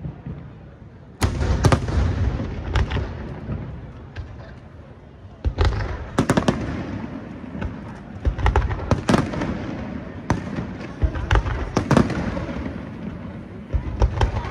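Aerial fireworks display: shells bursting in sharp booms and reports. They start suddenly about a second in, ease off for a couple of seconds, then come thick and fast to the end.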